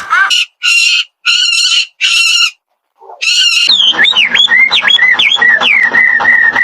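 Animal calls: three short harsh calls about half a second each, a brief pause, a fourth, then a dense fast-pulsing chorus with high whistling notes sliding up and down over it.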